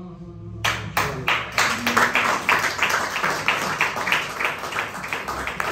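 Hands clapping in a steady rhythm, about three claps a second, starting under a second in.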